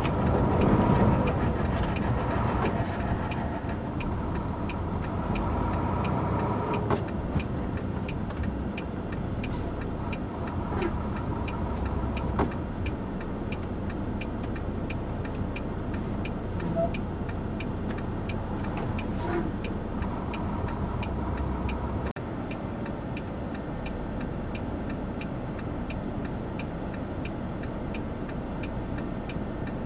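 A truck running, heard from inside the cab: a steady low engine-and-road drone with a regular light ticking about twice a second. The deepest part of the drone drops away suddenly about two-thirds of the way through.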